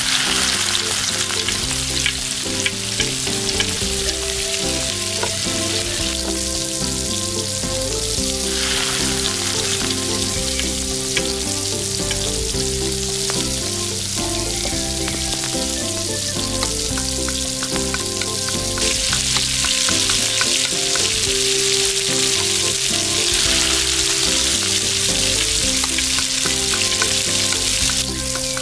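Chopped onion and green chillies frying in hot oil in a tiny steel pot: a steady sizzle, with light clicks of a small spoon stirring against the metal. Soft background music plays underneath.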